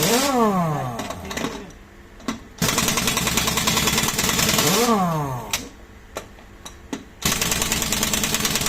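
Pneumatic impact wrench hammering on truck wheel nuts in bursts of about two seconds, each ending in a falling whine as the air motor spins down. Light clicks come between the bursts.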